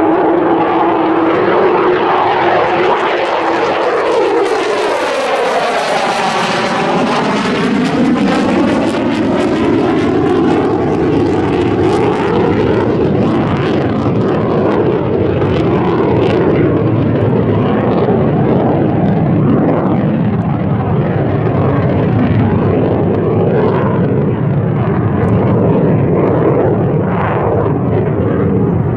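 Lockheed Martin F-35 Lightning II fighter flying past, its single Pratt & Whitney F135 turbofan making loud, steady jet noise. A falling then rising whooshing sweep runs through the sound between about four and ten seconds in as the jet passes.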